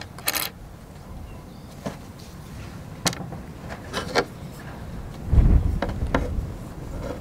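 Handling noises from paper templates and a small metal tube being worked in the hands: a few scattered light rustles and clicks. About five seconds in there is a louder low bump and rumble.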